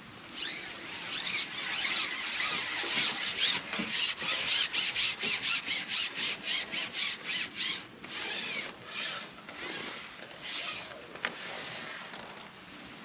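A carbon fishing pole being pushed out through the hands, hand over hand, to cup in groundbait. Each push gives a short rasping rub, several a second, then the strokes come slower and fainter after about eight seconds.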